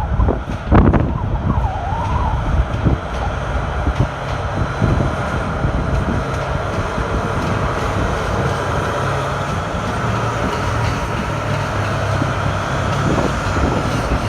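Freight train running past with a steady low engine drone, wind buffeting the microphone in the first second or so.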